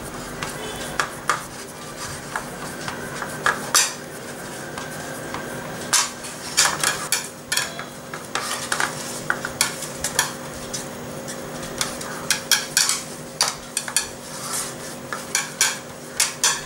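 A metal cake pan knocking and clicking irregularly on the counter as dough is pressed and spread in it by hand, with fingers and a held rim rattling the pan, over a steady low hum.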